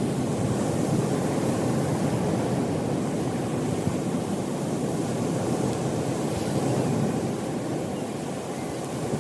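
Steady rushing of sea surf on a beach, mixed with wind on the microphone, easing slightly near the end.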